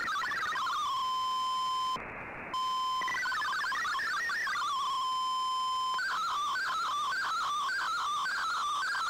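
Shortwave receiver audio of an MFSK digital-mode broadcast: rapid stepping warbly data tones, then a steady single tone, a brief drop to radio hiss at about two seconds, and more stepping tones. About six seconds in the signal changes to a fast repeating sweeping warble as an MFSK picture transmission begins.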